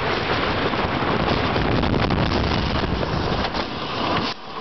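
Hurricane wooden roller coaster train running fast along its wooden track, a dense rumble with wind buffeting the microphone. The noise drops off abruptly near the end as the train enters the final stretch before the station.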